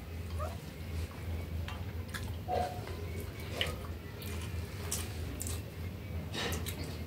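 Quiet eating sounds: chewing, and rice being squished and mixed with curry by hand on a steel plate, with a few faint clicks over a steady low hum.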